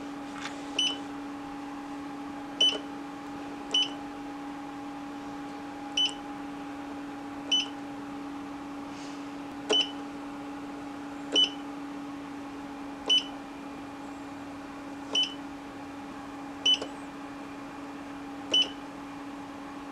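3D printer's stock TFT touchscreen giving a short high beep at each touch as menus are tapped through, about a dozen beeps one every second or two, over a steady hum.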